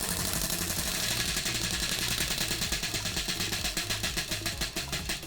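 Spinning toy prize wheel clicking against its pointer, the ticks rapid at first and spreading out as the wheel slows down.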